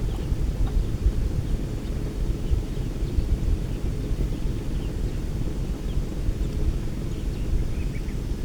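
Outdoor ambience: a steady low rumble with a few faint, brief bird chirps scattered through it.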